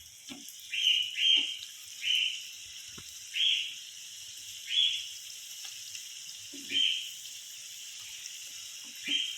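Beef samosas deep-frying in hot oil: a steady sizzle with about seven sharp surges of louder sizzling as they are turned over in the oil, a few of them starting with a light knock.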